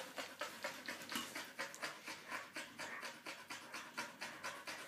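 Mother dog panting rapidly and steadily, about four to five quick breaths a second, a day after whelping.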